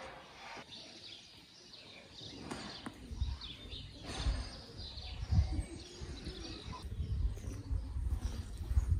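Small birds chirping over an uneven low rumble that swells from about three seconds in.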